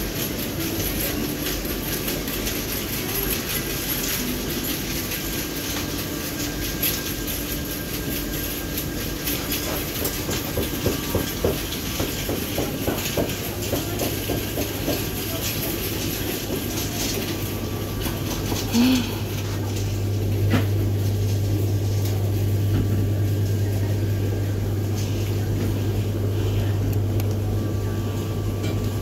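Supermarket background noise: a steady wash of store sound with scattered light clicks and rustles. A low steady hum, typical of a refrigerated display case, comes in about halfway and gets louder about two-thirds of the way through.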